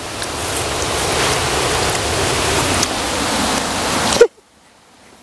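Loud, even rushing noise that builds slowly, then cuts off abruptly about four seconds in.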